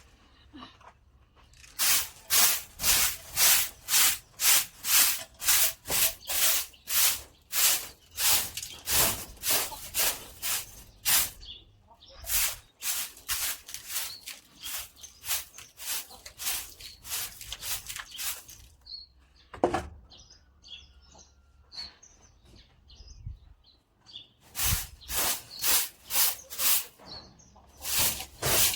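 Broom sweeping in quick, rhythmic strokes, about two or three a second, in three runs with short pauses between them.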